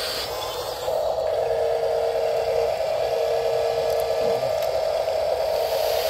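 Steady electric whine from the small motor that tips the Huina RC dump truck's bed, starting about a second in as the bed tilts up to dump its load of sand.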